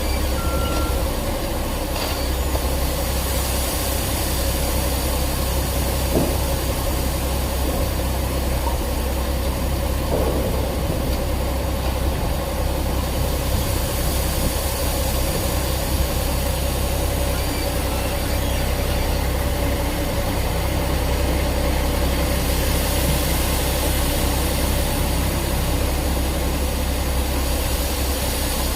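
Heavy road-construction machine's engine running steadily, a constant low rumble with a steady hum above it.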